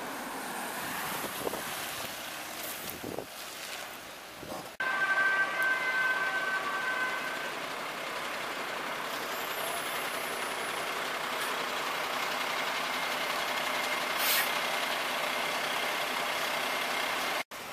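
Steady street noise from a large emergency truck's engine running. About five seconds in, the sound jumps louder, with a brief high steady whine for a couple of seconds.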